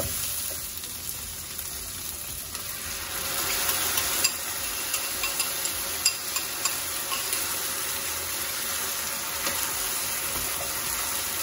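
Onion and tomato sizzling in a hot nonstick frying pan, stirred with a wooden spatula, with scattered taps and scrapes. Partway through, a bowl of sauce is poured into the pan and the frying goes on in the liquid sauce.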